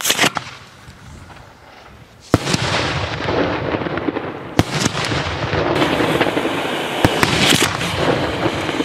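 Daytime fireworks: a sharp bang right at the start, then from about two seconds in a dense, continuous crackle of shots, with several louder bangs standing out.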